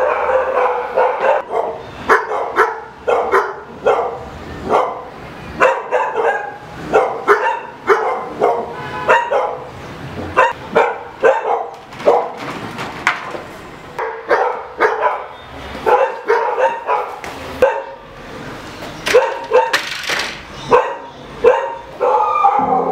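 A dog barking over and over, short loud barks every half second to a second. Piano music comes in near the end.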